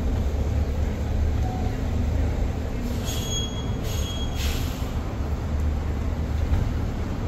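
Street traffic rumbling steadily, with a brief high-pitched squeal heard twice about three to four seconds in.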